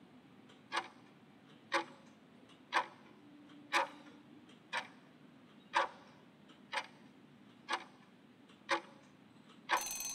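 Countdown-timer clock sound effect ticking once a second, nine evenly spaced ticks. Near the end a brief alarm-like ring sounds as the countdown runs out.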